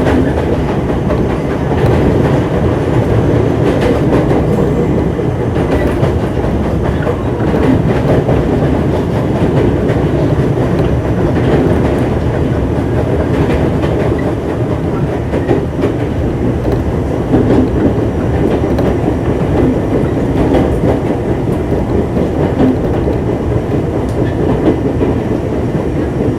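Running sound of a JR 205 series 0-subseries electric train's motor car with inner-fan traction motors: steady rolling noise from wheels on rail, with scattered clicks from the wheels passing over rail joints.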